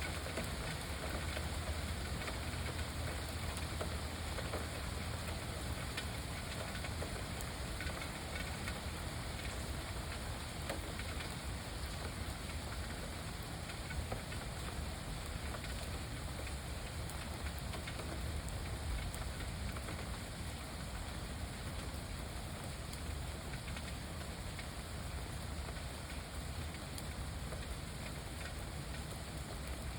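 Steady rain falling over a lake: an even hiss scattered with small drop ticks, over a low steady rumble.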